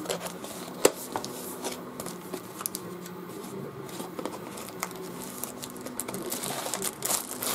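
Stiff cardboard folders and sheets being handled and shuffled: scattered light taps, rustles and card scraping against card, with a sharper tap about a second in and a busier clatter near the end.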